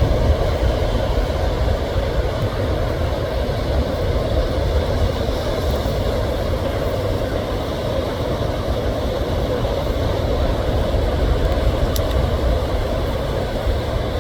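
A steady, low rumbling noise with no distinct events.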